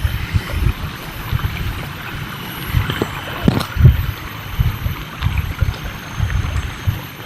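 Irregular low rumbling and thumps on the microphone, with a faint steady high whine above and a couple of light clicks about three and a half seconds in.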